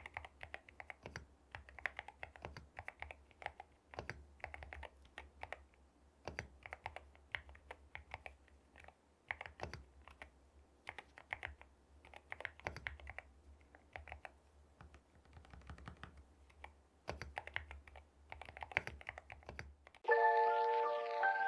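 Typing on an Akko MU01 mechanical keyboard: irregular runs of crisp keystrokes broken by short pauses. Near the end the typing stops and chiming background music begins.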